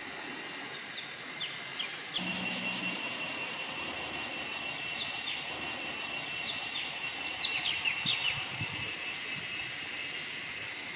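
Forest ambience: a steady high insect drone, with birds giving short, quick falling chirps, a cluster of them about seven to eight seconds in.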